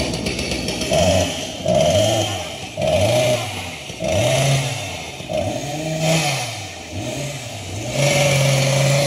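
An engine revving in short repeated blips, its pitch rising and falling about once a second, then held at a steady pitch near the end.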